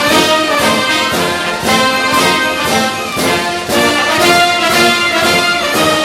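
Orchestral music with prominent brass playing a lively, rhythmic passage.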